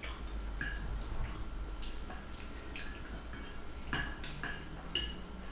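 Cutlery clinking and scraping against plates in scattered light taps as people eat.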